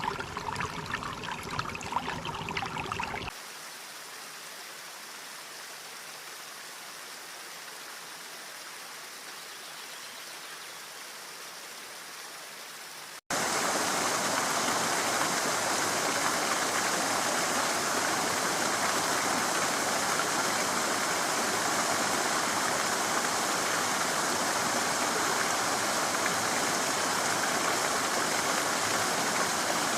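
Running stream water, in three cut-together recordings: a louder, uneven stretch for about three seconds, then a quieter steady flow, then from about thirteen seconds in a louder, steady rush of water.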